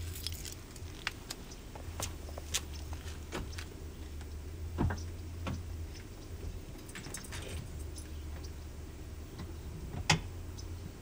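Scattered faint clicks and light rattles over a low, steady hum that drops out for a moment about halfway through; a sharper click about ten seconds in.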